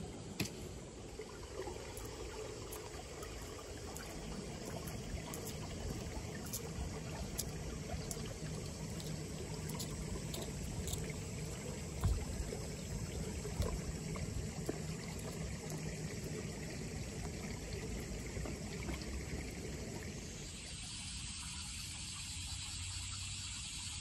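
Steady running water of a small irrigation ditch, a continuous trickling flow. About twenty seconds in it changes to a brighter hiss, like water flowing through a concrete culvert.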